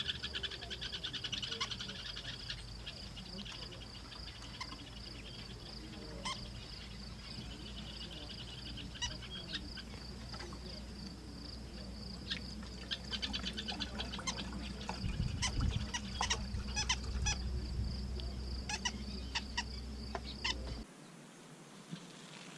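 Night chorus at a waterhole: frogs and insects calling, with a steady high-pitched chirring and rapid trains of clicking pulses, plus scattered single clicks. The chorus drops away sharply near the end.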